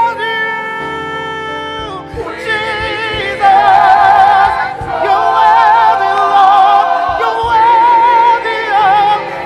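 Gospel stage singing with accompaniment: voices hold a chord, then from about three and a half seconds a soprano sings loud, long high notes with wide vibrato.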